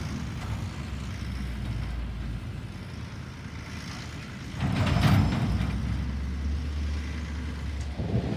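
Diesel engine of a rear-loader garbage truck running as it drives by, a steady low rumble that gets louder about four and a half seconds in, with a brief hiss around five seconds.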